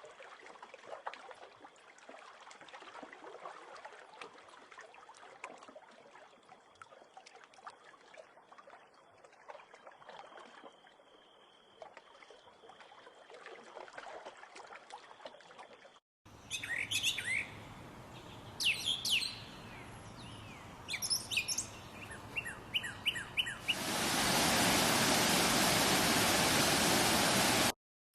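A sequence of separate recordings. First comes a long stretch of faint, dense crackling noise. After a sudden cut, birds chirp in short rising and falling calls, and then a loud steady rushing noise runs for a few seconds and cuts off abruptly.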